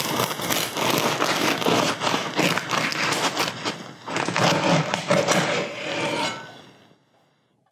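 A knife sawing back and forth through the crisp, crackly crust of an artisan walnut loaf, a dense run of crunching and scraping that stops about six and a half seconds in.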